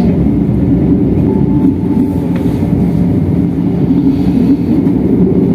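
Passenger train running along the track, a steady low rumble heard from inside the carriage.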